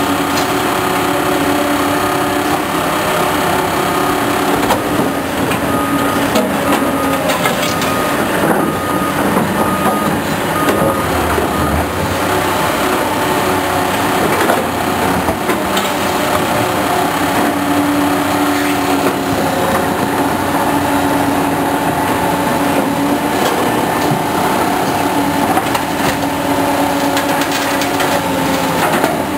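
Tracked hydraulic excavator running: a loud, steady diesel engine drone.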